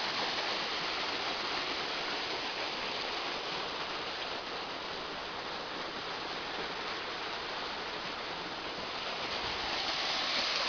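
Waterfall running: a steady rush of falling water, a little louder near the end.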